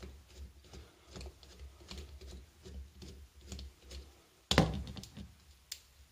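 Light, irregular clicks and taps of a screwdriver and gloved hands working the last screw out of a motorcycle carburetor's float bowl lid, with one sharp knock about four and a half seconds in.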